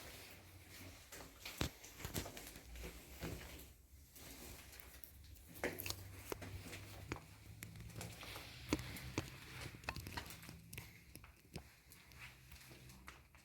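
Slow, irregular footsteps with scattered scuffs and small clicks, echoing in a small enclosed room.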